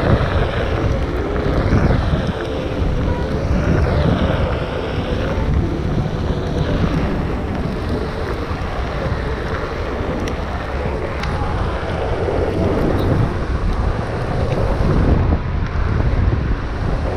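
Wind buffeting the microphone: a loud, steady rushing and rumbling noise that rises and falls.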